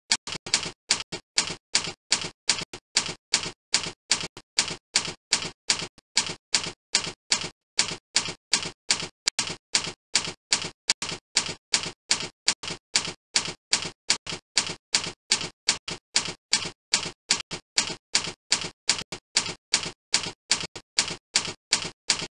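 A ticking sound effect: a steady, even run of short sharp ticks, about two to three a second, alternating louder and softer like a tick-tock.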